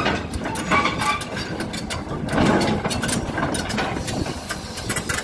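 Caterpillar tracked excavator's diesel engine running as the machine drives up the ramp onto a lowboy trailer, with repeated sharp clanks from its steel tracks.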